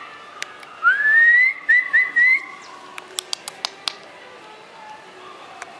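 A person whistling: one long rising note, then three short rising notes in quick succession. A quick run of light, sharp clicks follows a little later.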